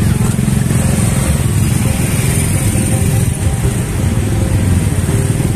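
Motor scooter engines running at low speed in dense, slow-moving scooter traffic, the nearest engine giving a loud, steady, low, rapid note.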